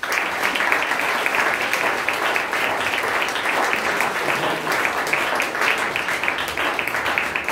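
Audience and cast applauding: dense, steady clapping from many hands.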